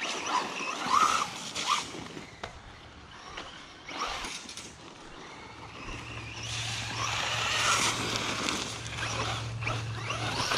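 BEZGAR HM124 brushless RC car on a 3S lipo driving hard over loose dirt: the electric motor whines up and down with bursts of throttle while the tyres scrabble on the ground.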